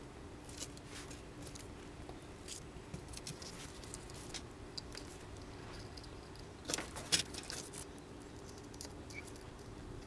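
Faint small clicks and taps from soldering a wire onto a remote control's circuit board, over a low steady hum, with a short cluster of louder clicks about seven seconds in.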